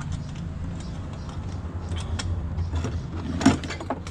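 Scattered metallic clinks and knocks from handling a motorcycle's broken steel saddlebag bracket and tools, the loudest knock about three and a half seconds in, over a steady low hum.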